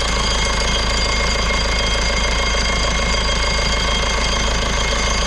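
Irrigation pump running steadily at speed, an unchanging loud drone with a high, even whine over it.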